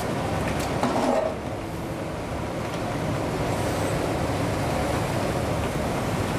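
Steady rushing noise of a commercial kitchen's extractor hood and gas burners running, with a brief louder sound about a second in.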